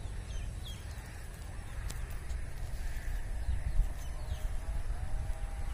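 Small birds chirping in short falling notes over a steady low rumble, with a faint wavering call coming in near the end.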